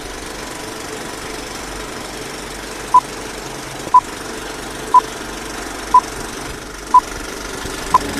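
Old-film countdown leader sound effect: a steady film-projector rattle with a short, high beep once a second, six beeps starting about three seconds in.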